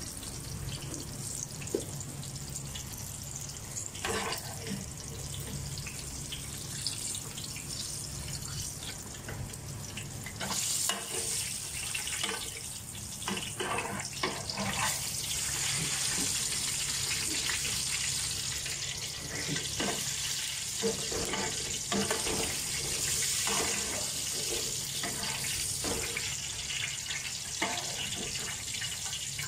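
Eggplant slices deep-frying in oil: a steady sizzle that gets louder about ten seconds in, with scattered clinks and knocks of a wire-mesh skimmer against the pan.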